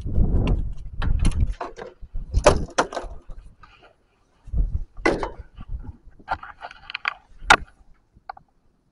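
Irregular knocks, thumps and rattles as a landing net holding a brown trout is swung onto a wooden dock and its frame and long handle are set down on the boards.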